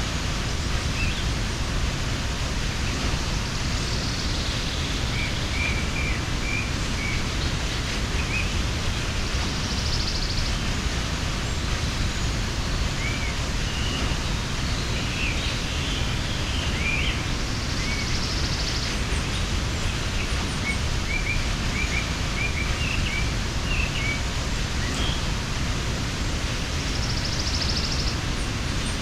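Mountain waterfall rushing steadily, with birds chirping now and then over it and four short, high, buzzing trills.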